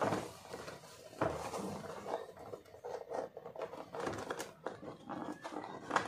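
Cardboard keyboard box handled by hand: light rubbing and scraping of the cardboard, with a short knock about a second in.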